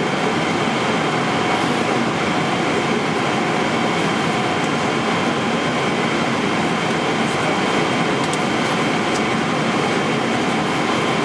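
Steady cabin noise inside a Boeing 777-300ER in flight: an even rush of airflow and engine noise with a few faint steady tones through it.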